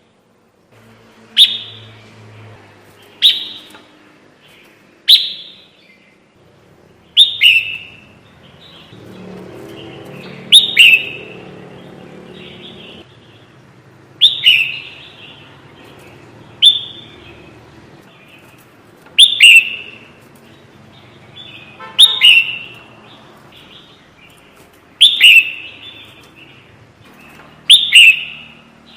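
Bulbul (kutilang) calls used as a lure: short, sharp descending call notes repeated about every two seconds, some given in quick pairs.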